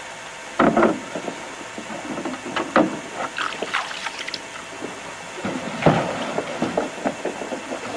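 Water splashing and sloshing around a canoe on the water, with small knocks and trickles and three louder splashes a few seconds apart.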